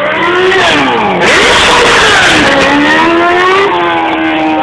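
Motorcycle engine revving hard during a burnout, its pitch climbing and falling twice. A loud rushing hiss joins it for about two seconds in the middle.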